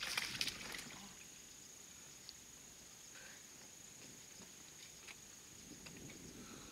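A short rush of noise with a few sharp clicks in the first second, as a hooked sea bass comes off during the fight, then faint open-air background with scattered small ticks. A steady high-pitched whine runs underneath.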